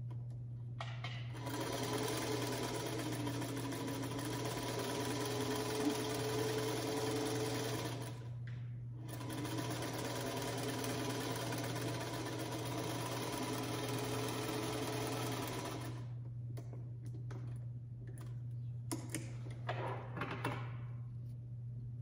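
Electric sewing machine stitching a quarter-inch seam through quilt fabric strips, running steadily in two spells of about seven seconds with a brief pause between. Then it stops, and a few faint clicks follow near the end.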